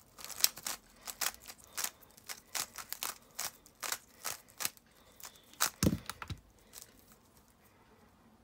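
A 3x3 speed cube being turned rapidly in the hands, a quick run of sharp plastic clicks and clacks for about six seconds as it is scrambled between solves. A duller thump comes near the end of the clicking.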